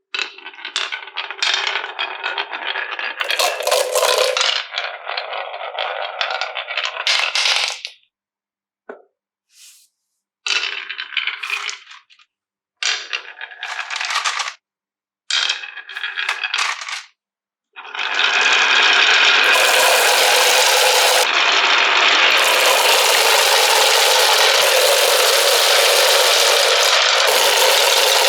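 Marbles rolling and clattering down a wooden marble run, a dense continuous rattle. It breaks into a few short bursts with sudden silent gaps, then runs on unbroken for the last third.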